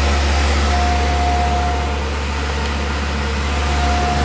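Tormach PCNC milling machine cutting with a 1 mm end mill: a steady low hum and an even hiss, with a thin high tone that comes in for about a second, starting about a second in, and again near the end.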